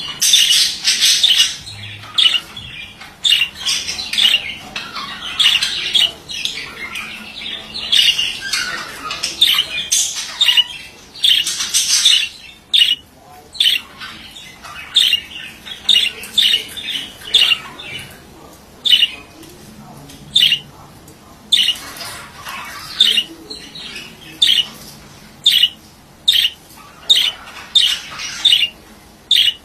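Male budgerigar calling: dense warbling chatter in the first half, then short, sharp squawks repeating about once or twice a second.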